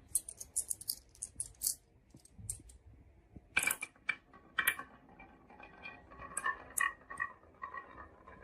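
Marbles clicking and clattering along a wooden marble run: a quick run of sharp, light clicks at first, a few louder knocks around the middle, then lighter clicks with a short ring to some of them.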